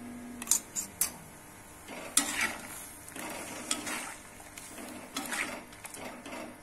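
A steel ladle stirs thick coconut-paste curry in a metal kadai, with several scraping swishes against the pan. A few sharp clinks come in the first second.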